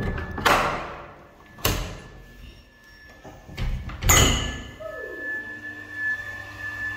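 Metal slide bolt on a door drawn back with a scrape and a sharp clack, then the door's handle and lock clunking as the door is pulled open, with the loudest knock about four seconds in.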